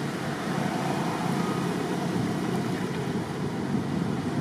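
Steady outdoor background noise, an even rumbling hiss with no distinct events.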